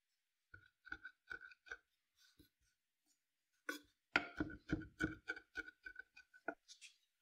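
A kitchen utensil knocking against a bowl: a run of taps that each ring briefly at the same pitch. They are scattered at first, then come quicker and louder from about four seconds in.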